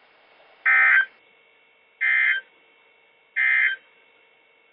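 NOAA Weather Radio SAME end-of-message data bursts: three short, harsh digital squawks about a second and a third apart. They signal the end of the flood warning broadcast.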